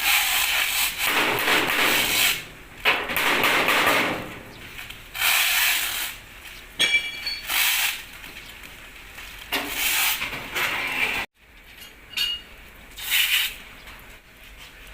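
Compressed-air paint spray gun hissing in repeated bursts of one to two seconds, with short pauses between triggers, spraying clear coat.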